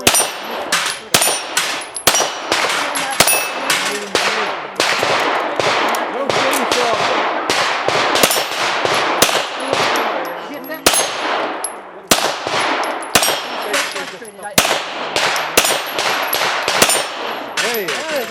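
Rapid pistol fire at an action pistol match, shots coming two or three a second throughout, mixed with the clang of bullets hitting steel targets.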